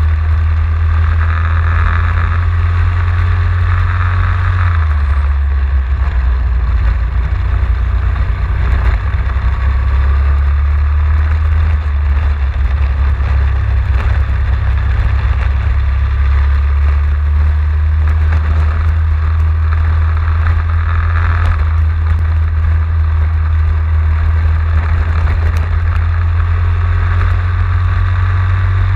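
Racing go-kart engine running hard through a lap, heard from a camera mounted on the kart, loud and continuous over a heavy low rumble. Its note swells and eases several times with the throttle.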